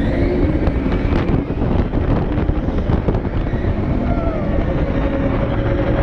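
TRON Lightcycle Power Run launched roller coaster train racing along its track at speed, with a steady rush of wind over the microphone.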